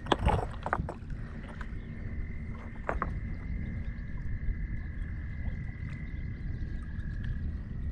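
Frogs giving long, steady trills at nearly the same high pitch, one of them stopping near the end, over a low rumble of wind on the microphone. A few short knocks come near the start and about three seconds in.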